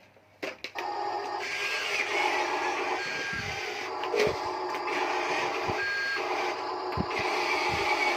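Huina radio-controlled toy construction vehicle running: a steady electric motor and gear whirr, with a few clicks about half a second in and short high beeps now and then.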